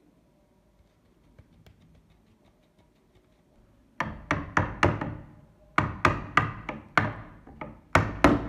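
A hammer strikes a screwdriver used as a drift against a Mauser Kar98k's steel nose cap, knocking it loose from the stock. The hard, ringing metal knocks come about four a second in three short runs, starting about halfway in.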